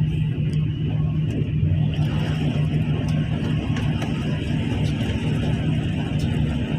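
Rain beating on a window, heard from inside as a steady low rumble with a few faint taps.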